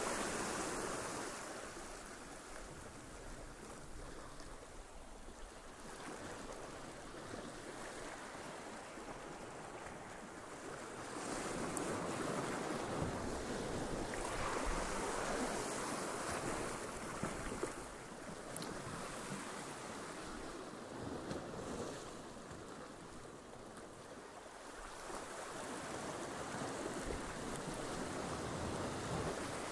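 Sea waves washing and breaking against shoreline rocks, swelling louder about eleven seconds in and again near the end.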